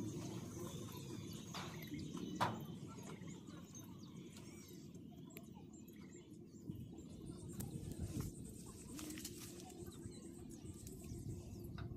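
Faint outdoor ambience: small birds chirping in the distance over a low steady rumble, with one sharp click about two and a half seconds in.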